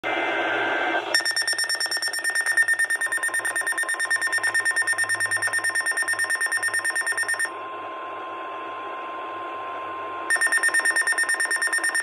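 Weather alert radio sounding a severe thunderstorm warning. After a brief noisy burst, a rapid, shrill pulsing beep runs for about six seconds. It gives way to a steady single warning tone for about three seconds, and the pulsing beep starts again near the end.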